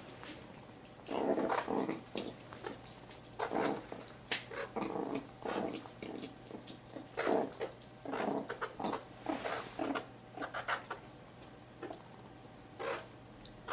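Meerkat growling in a dozen or so short, harsh bursts at irregular intervals: a defensive warning at another meerkat trying to take its food.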